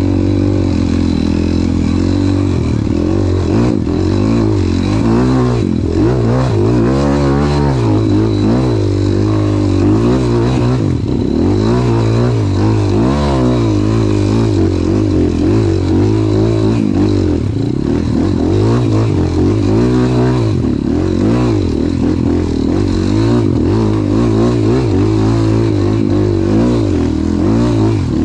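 Off-road trail motorcycle engines revving up and down again and again, the pitch rising and falling every second or two, with some clatter.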